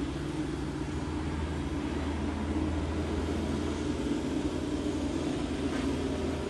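Kubota tractor's diesel engine running as the tractor drives along, a steady low drone.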